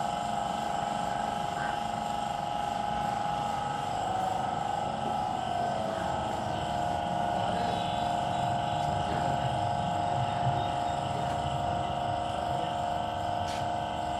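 A steady, droning engine-like machine sound with a dip in pitch about five seconds in. There is a single sharp click near the end.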